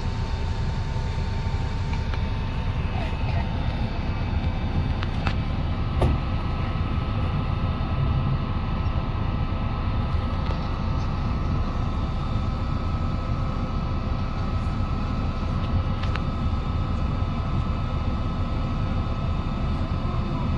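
Steady low rumble of a moving vehicle's engine and motion, with a couple of faint clicks about five and six seconds in.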